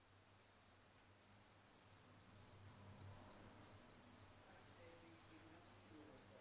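A cricket chirping: a steady run of about a dozen short, high chirps, roughly two a second, with a brief gap near the end.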